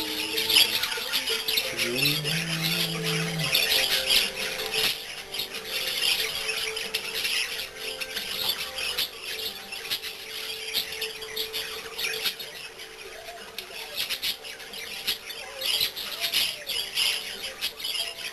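Pet budgerigars chattering and warbling close up: a continuous stream of scratchy chirps and squawks.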